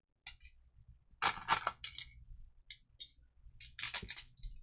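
Small metal pendant charms and their glass covers clinking and clicking against each other as they are picked up and handled, a scatter of light clinks with a couple of busier clusters.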